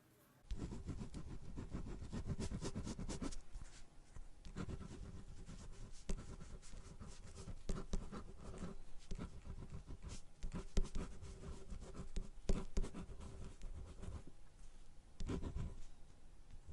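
Writing on paper in a notebook: a steady run of fine scratchy pen strokes, starting about half a second in, with brief pauses a few seconds in and again near the end, as a home address is written down.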